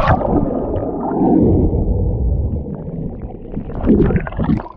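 Muffled underwater rumbling and gurgling of heavy surf churning water and bubbles around a diver, with a sharp hit at the start.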